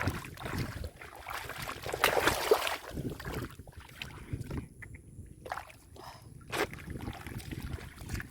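Irregular sloshing and splashing of muddy water, with a louder stretch about two seconds in and a sharp knock near the end.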